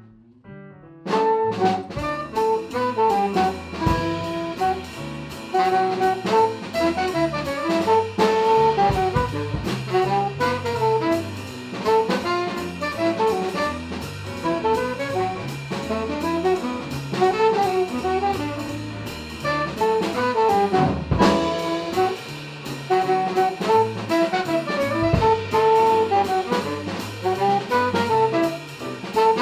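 Upbeat jazz music with saxophone, brass and drum kit, starting about a second in after a brief quiet gap.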